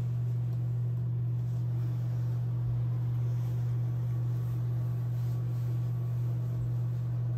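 A steady low hum with a faint even hiss, unchanging in pitch and level.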